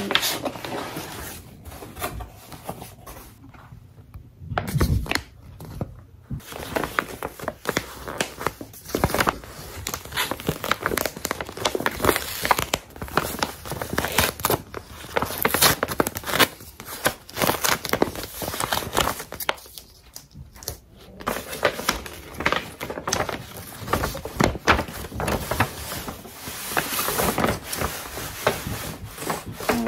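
Paper packaging rustling, crinkling and tearing as a clothing delivery box is unpacked: the sticker sealing a white paper wrap is peeled off and a folded dress is lifted out. The sound comes as irregular clusters of rustles and crackles, with a couple of short lulls.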